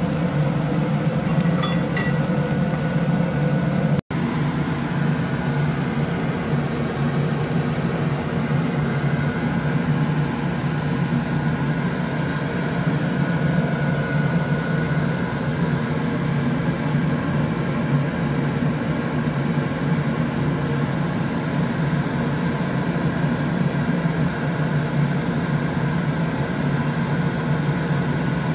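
Steady low mechanical hum of a fan running, with a brief break about four seconds in.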